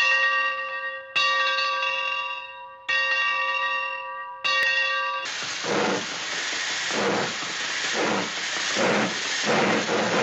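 Studio sound effects for a steam train. A bell that is already ringing is struck three more times, about a second and a half apart, each stroke fading away. About five seconds in, a hissing steam-locomotive chuff takes over, pulsing about once a second.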